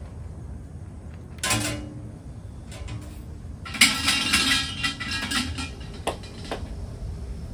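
Shinto shrine bell (suzu) shaken by its rope: a short metallic rattle about a second and a half in, then a louder jangling for about two seconds. Two sharp knocks follow near the end.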